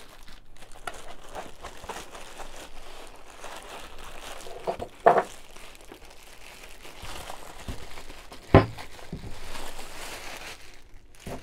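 Clear plastic bag crinkling and rustling as it is handled around a coffee grinder being lifted out of foam packing. A single knock about eight and a half seconds in, as the grinder is set down on the wooden table.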